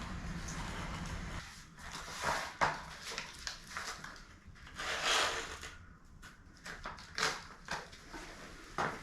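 A low steady hum that cuts off about a second and a half in, then irregular knocks and scuffs of hands-on work.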